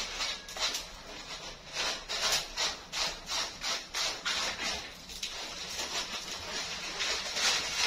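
Repeated scratchy rubbing or scraping strokes, about two or three a second, thinning out in the later part and picking up again near the end.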